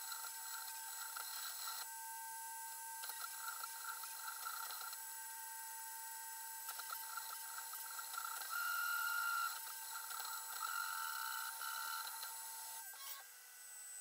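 Creality 3D printer running a print at five times speed: its motors give high whining tones that shift and change every second or two as the print head and bed move.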